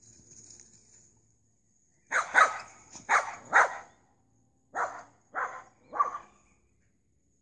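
Small dog barking: a quick run of about four barks, then three more evenly spaced about a second later.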